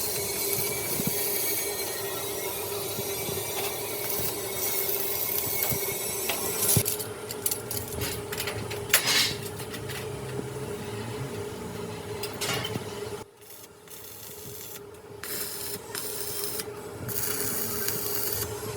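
Steel fabrication shop work: rasping, scraping sounds of metal being worked over a steady machine hum. The sound drops away briefly a little past halfway, then resumes.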